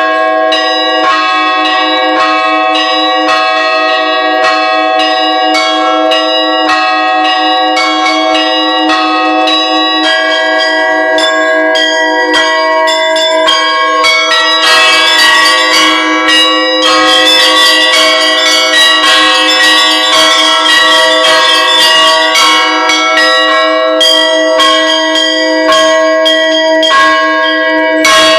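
Bells ringing continuously, many overlapping ringing tones struck again and again in a steady rhythm; the ringing grows fuller and brighter about halfway through.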